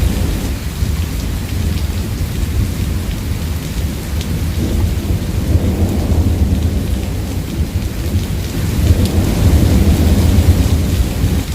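Thunderstorm: steady heavy rain with rolling rumbles of thunder, the loudest swell coming in about nine seconds in.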